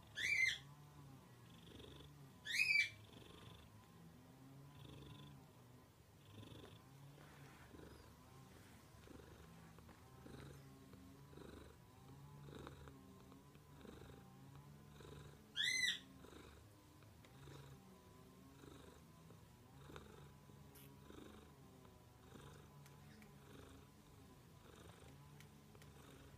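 Tabby cat purring steadily and rhythmically, with three short, high calls from the cat standing out above the purr: two in the first three seconds and one a little past the middle.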